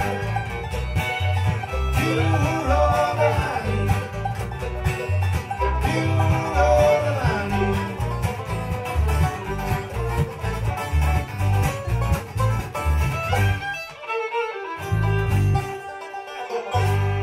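Bluegrass band playing live: fiddle, banjo and acoustic guitars over a steady rhythm. About fourteen seconds in the rhythm breaks off to a few sparse notes, and a last low chord starts to ring near the end as the song finishes.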